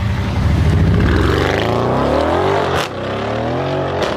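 Brabus 850 6.0 Biturbo CLS Shooting Brake's twin-turbo V8 accelerating hard, its pitch climbing, breaking at a gear change about three seconds in with a sharp crack, then climbing again.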